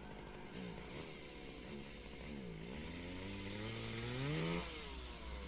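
Eerie Halloween sound-effect drones: buzzing, layered tones that slide down and up in pitch again and again, swelling and climbing about three seconds in, then dropping away about a second later.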